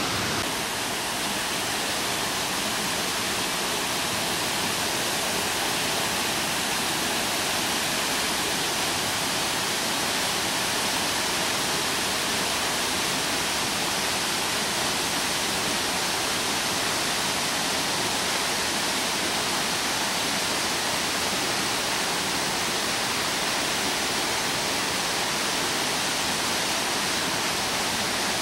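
Steady rush of water from a stream running through a rocky gorge, an even hiss that does not change.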